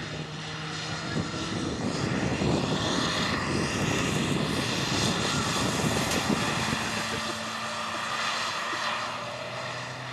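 Rally car engine running hard with road and wind noise; its note shifts about two-thirds of the way through.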